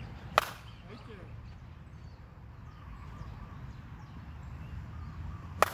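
A baseball bat hitting pitched balls: two sharp cracks with a short ringing, the first about half a second in and the second near the end.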